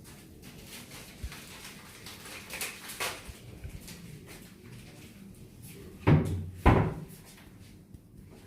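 Two loud knocks about half a second apart, a little past the middle, with a few faint clicks and handling sounds before them.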